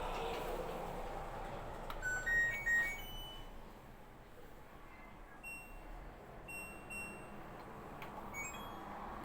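Washing machine control-panel beeps: a short rising run of electronic tones about two seconds in, then single higher beeps every second or so. A steady noise in the first two seconds fades out.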